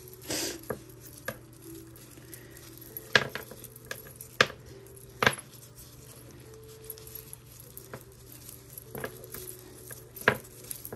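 Metal costume jewelry being handled, clinking and tapping against itself and the tabletop, with about half a dozen sharp clicks spread out among quieter rustling.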